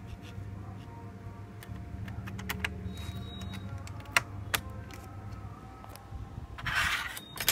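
Laptop SO-DIMM RAM module being pushed into its slot and pressed down, giving several sharp small clicks in the middle as it seats and latches, then a short rustle near the end. A steady low hum runs underneath.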